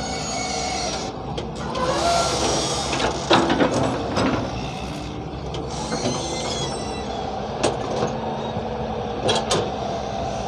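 Hyundai 170 excavator's diesel engine running steadily with a high whine over it, and sharp metal clanks: two about three and a half seconds in, one a little before eight seconds, and two more near the end.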